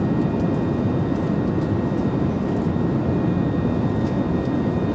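Airliner cabin noise in flight: the steady low rush of jet engines and airflow heard from inside the cabin, with a faint steady high whine above it.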